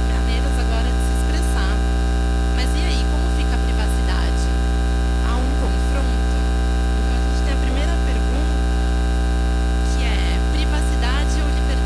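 Loud, steady electrical mains hum with a stack of even overtones, typical of a ground-loop hum in the sound system or recording feed. Faint distant chatter lies underneath.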